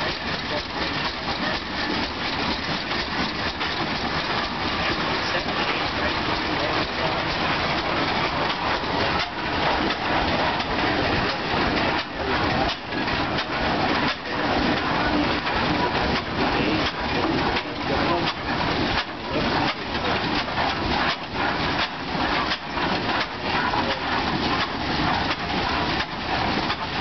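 Antique kerosene-burning oil tractor engines running, first the Rumley OilPull and then the Fairbanks-Morse oil tractor, with a steady, quick run of exhaust beats that grows more distinct partway through.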